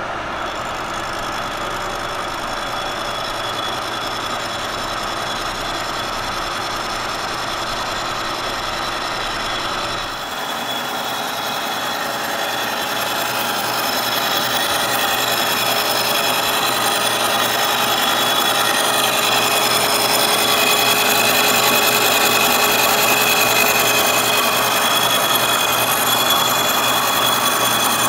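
Carbide-insert face mill on a Kearney & Trecker milling machine taking a 20-thousandths-deep cut across a cast iron straight edge: a steady machining noise with several ringing tones. About ten seconds in, the low hum drops away and the high tones grow stronger.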